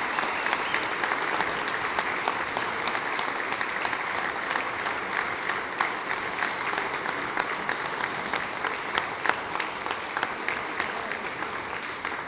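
Audience applauding, a dense steady patter of many hands clapping that eases slightly near the end.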